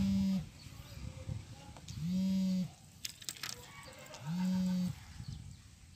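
A low, even-pitched animal call repeated at a steady pace about every two seconds, each call lasting a little over half a second. It is heard three times, with a brief patter of clicks between the second and third.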